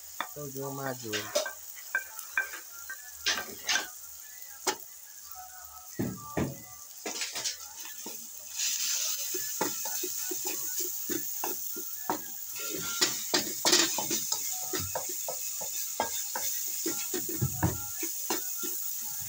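Minced-meat and vegetable filling sizzling in a pan as a utensil stirs and scrapes it, with many short clicks and scrapes against the pan. The sizzle grows into a steady hiss about halfway through.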